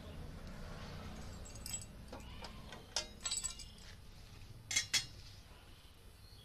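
Steel slotted spoon clinking against steel utensils a few times, the two sharpest clinks about five seconds in as it is laid down, over a faint low hum.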